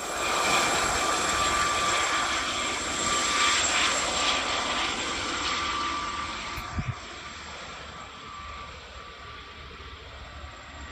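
Aérospatiale SA341 Gazelle helicopter departing: a steady high turbine whine from its Turbomeca Astazou engine over rushing rotor noise, fading away after about six seconds as it flies off.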